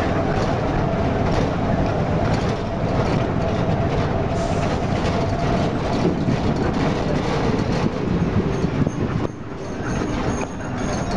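Zonda YCK6128HC city bus under way, its Cummins ISB245 six-cylinder diesel running with a steady rumble and the rattle of the body and fittings. The noise dips briefly about nine seconds in, then carries on.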